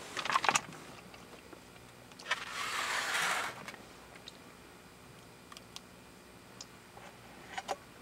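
Soup poured from a paper cup into a bowl: a short splashing pour lasting a little over a second, about two and a half seconds in. A few light clicks and taps of cup and bowl follow near the end.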